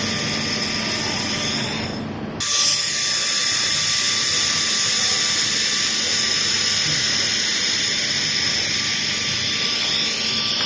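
Welding on stainless steel: a steady hiss with constant high-pitched whining tones, broken off briefly about two seconds in, then running on.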